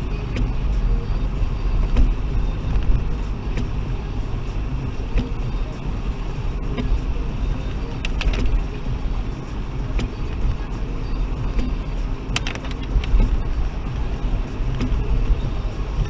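Toyota Aygo driving on a wet road, heard from inside the cabin: a steady low engine and tyre rumble, with a few sharp clicks, the clearest about twelve seconds in.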